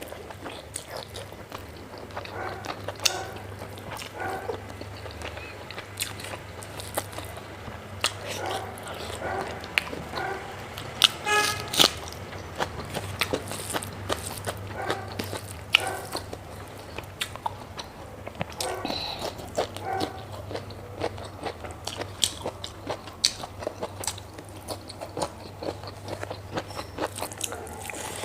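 Close-miked chewing of pork fat and rice, with wet mouth clicks and lip smacks coming irregularly, and a short pitched squeak about halfway through.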